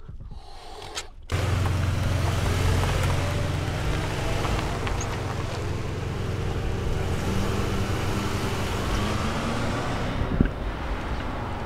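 Van driving: a steady engine hum and road noise that cut in abruptly about a second in, with a single knock near the end.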